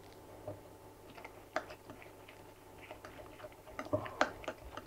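Wire whisk stirring a thick powdered-sugar and milk glaze in a stainless steel bowl, the tines clicking irregularly against the metal, a little louder about four seconds in.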